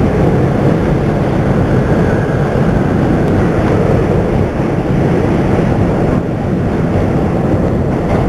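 New York City subway train (N line) running along the track, a loud steady rumble of wheels and car, with a faint high whine about two seconds in.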